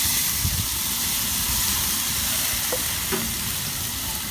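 Beer poured from a can onto chicken on the hot firebox grill of an offset smoker, sizzling and hissing steadily as it hits the meat and fire. The sizzle eases off a little near the end.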